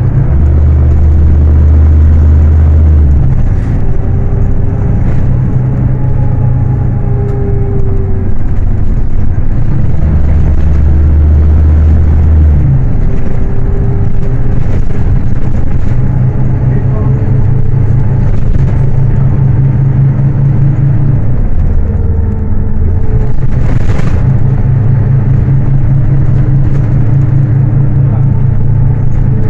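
Scania K310UA city bus's rear-mounted diesel engine running under way. Its note drops to a deeper pitch twice, for about three seconds each, and otherwise holds a higher note as the bus changes speed. A single sharp click comes about three quarters of the way through.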